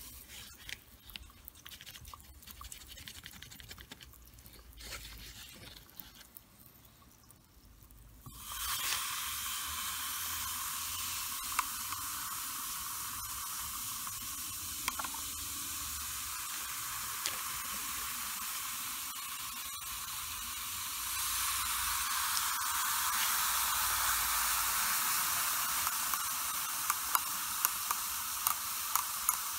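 Aluminium powder fizzing in a sodium hydroxide and sulfide solution: a steady hiss of hydrogen bubbles that starts suddenly about a third of the way in and grows stronger past the middle. Faint clicks come before the hiss, and near the end a glass stirring rod taps against the glass beaker several times.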